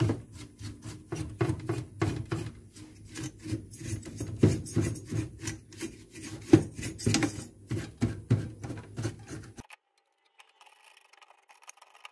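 A bristle brush scrubbing dust off a CRT television's circuit board in quick, repeated strokes, about three a second, stopping near the end.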